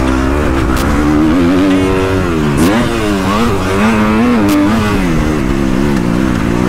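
A Kawasaki KX250F four-stroke motocross bike running hard, its pitch rising and falling again and again as the throttle is opened and closed through the track, with steady wind rush on the helmet-mounted camera and a few short knocks.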